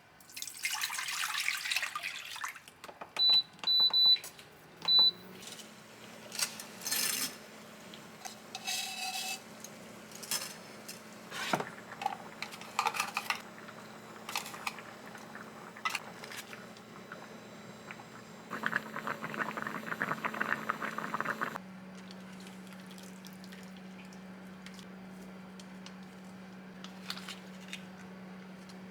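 Household handling noises with clatter and knocks, three short electronic beeps, and a steady low appliance hum that starts just after the beeps and grows steadier later on. A few seconds of rushing noise, like running water, come shortly before the hum settles.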